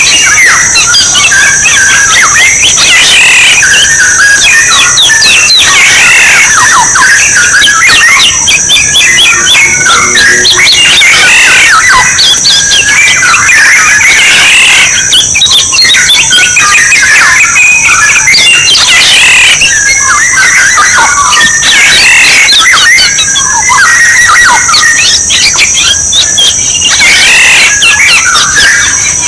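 Orioles calling and singing without a break: a dense, continuous run of fluty whistles and harsh squawks. A steady high-pitched drone sits above them.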